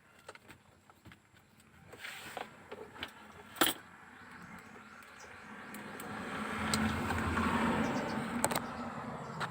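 Light clicks and rattles of small metal parts and wiring being handled, with two sharper clicks. Under them a vehicle passes by, rising from about five seconds in and fading near the end.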